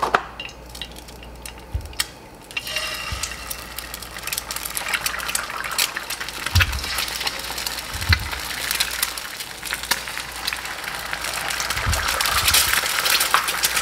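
Eggs being cracked into hot oil in a nonstick skillet, with a few dull knocks, then sizzling and crackling as the eggs fry, getting louder toward the end.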